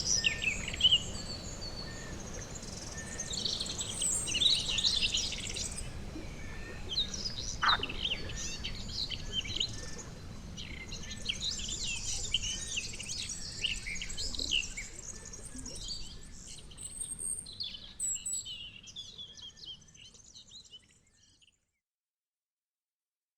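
Pond ambience: a dense chorus of short, high chirping calls from frogs and birds over a low rumble, fading out to silence about 21 seconds in.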